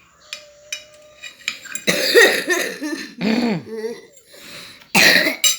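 Young child coughing in three bouts, the loudest about two seconds in and a sharp one near the end, with a few light clicks before it: the cough of a child sick with a cough.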